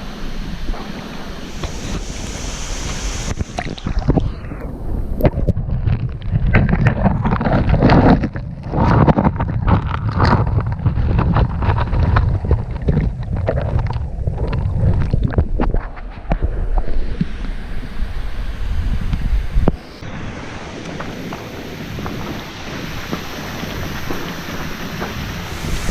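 Wind buffeting the microphone over a steady rushing noise, with a rough, gusty stretch of low rumble and knocks through the middle, then steadier rushing after an abrupt change near the end.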